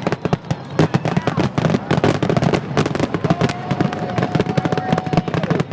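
Fireworks going off in rapid succession: a dense run of crackling pops and bangs, many a second. A thin steady whistle sounds from about halfway in until shortly before the end.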